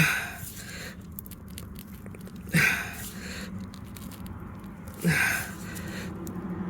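Tyre plug tool forced into a tread puncture in three hard strokes, each a short crunch of rubber with a brief falling squeak, about two and a half seconds apart.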